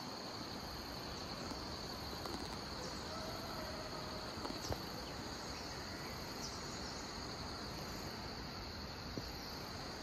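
A steady, high-pitched chorus of insects chirring without a break, with a few faint short chirps above it.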